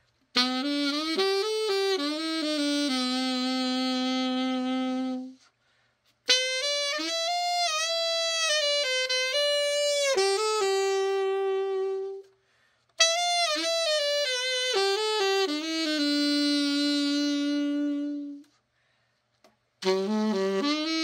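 Yamaha YAS-62 alto saxophone played solo in short phrases, each a quick run of notes settling onto a long held note, three times with brief pauses between, and a fourth phrase starting near the end. The horn is being play-tested after an overhaul.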